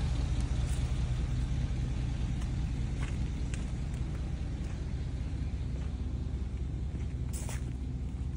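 An engine running steadily with a low rumble, with a few faint clicks and one sharper click about seven seconds in.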